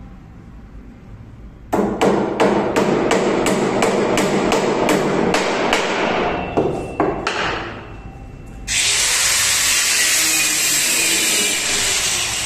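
A hammer striking the wooden frame rail of a sofa where zig-zag spring clips are fixed, a quick run of blows about three or four a second for some five seconds. Then, about nine seconds in, a handheld corded power tool starts and runs steadily.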